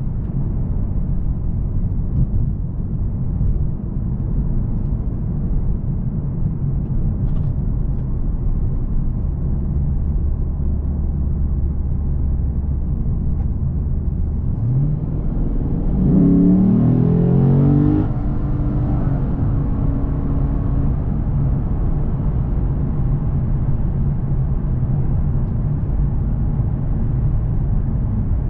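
Lexus RC F Track Edition's naturally aspirated 5.0-litre V8 heard from inside the cabin, cruising with a steady low rumble and road noise. About fifteen seconds in the revs climb through a short burst of acceleration lasting a few seconds, then it settles back to a steady cruise.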